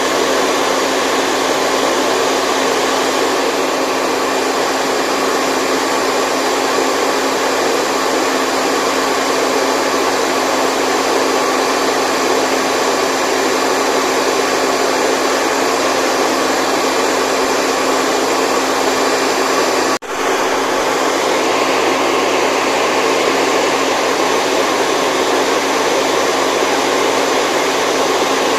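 Steady, even rushing white noise with a faint steady hum in it, broken by a split-second dropout about twenty seconds in.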